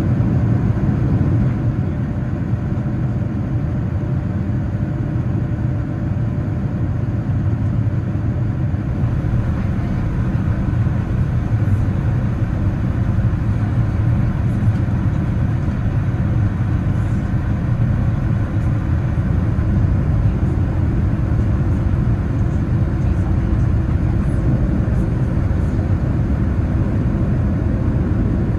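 Steady low rumble of engine and airflow noise inside the cabin of a Boeing 787-9 airliner in flight.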